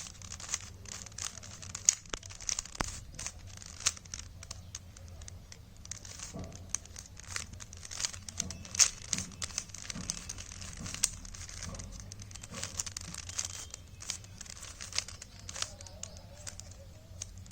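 A 3x3 Rubik's Cube being turned by hand through solving formulas: a rapid, irregular run of plastic clicks and clacks as the layers rotate.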